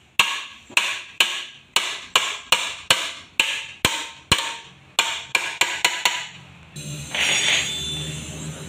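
About twenty hammer blows on metal, unevenly spaced at roughly three a second, each with a short ring. They stop about six seconds in, and a welding torch starts a steady hiss.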